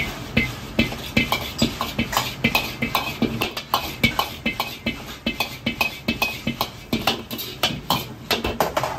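Metal wok ladle knocking and scraping against an iron wok while dried chilies and Sichuan peppercorns are stir-fried and tossed, about three strikes a second, over the steady rush of the gas wok burner. The clatter stops suddenly at the end.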